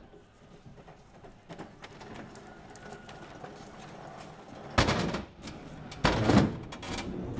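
Hand pallet truck loaded with stacked plastic crates being pulled across concrete, with two loud, brief rattling clatters of the load and wheels near the end.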